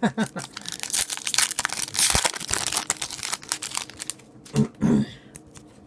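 Foil wrapper of an Upper Deck hockey card pack crinkling and crackling as it is torn open by hand and the cards are pulled out, the crackle thickest in the middle and dying away near the end.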